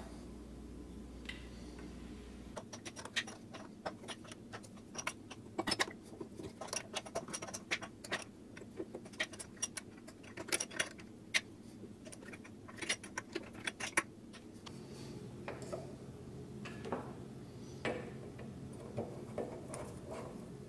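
Irregular light metallic clicks and clinks as a mini lathe's chuck and fittings are handled and adjusted by hand, busiest through the first two-thirds, with a faint low hum setting in past the middle.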